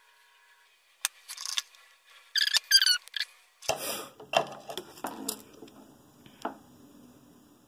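Small handling noises from tweezers and a soldering iron working on a drone's flight-controller stack: scattered clicks and scrapes, with a few short squeaks near the middle.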